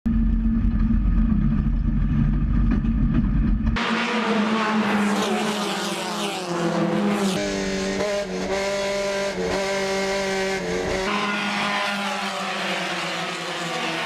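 Race car engines running at high revs, their pitch climbing and stepping up and down repeatedly as they shift gears. The sound changes abruptly about four seconds in, from a deep heavy rumble to a higher, brighter engine note.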